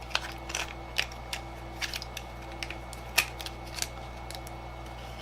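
Irregular small clicks and taps of laptop battery pack parts (circuit board, cells and plastic casing) being handled and fitted together, the loudest tap a little past three seconds in.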